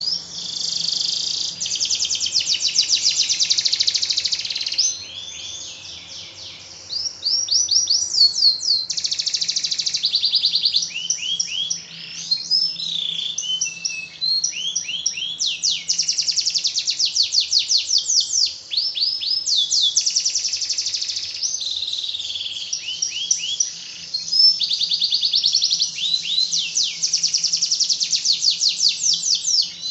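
Domestic canary singing a long, continuous song of fast rattling trills and rapid rising whistled sweeps. The song softens briefly at about five to seven seconds in, then comes back loud.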